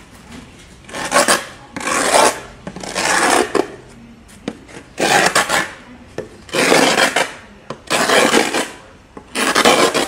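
An old steel chisel scraped hard across the face of bent plywood in repeated strokes, about seven in all with a short pause near the middle, scoring a crisscross pattern into the surface so that epoxy glue will bond to it.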